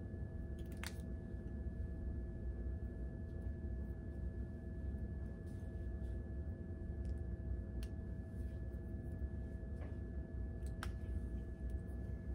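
Quiet room tone: a steady low hum with a few faint whining tones, broken by a handful of soft clicks, about a second in and again near the end.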